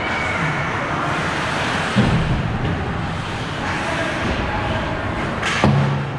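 Steady outdoor rumble and hiss, with a sudden knock about two seconds in and a sharp crack near the end.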